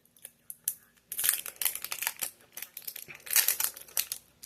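A crinkly wrapper being handled and torn open along its tear line: a few light crackles, then about a second in, dense crinkling and ripping that is loudest near the start and again near the end.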